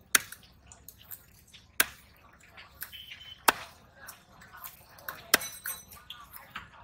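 Large knife chopping a scaled rohu fish into steaks on a wooden log block: four sharp chops about a second and a half apart, with lighter knocks in between.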